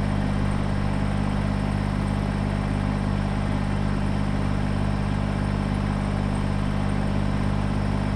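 Kubota BX23S tractor's three-cylinder diesel engine running steadily at a constant speed.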